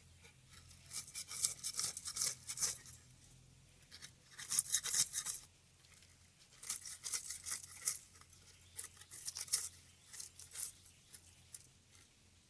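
Quick rasping scrapes of a blade on food, coming in four bursts of one to two seconds each.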